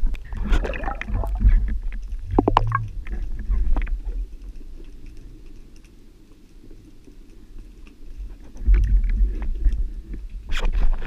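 Underwater sound picked up by a camera on a speargun: low water rumble with knocks and clicks in the first few seconds, a quieter stretch in the middle, then louder rumbling and dense water noise near the end as the diver moves close to the surface.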